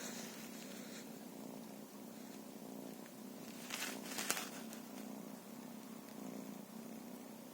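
A cat purring steadily and continuously, with a short burst of rustling and a sharp click about four seconds in.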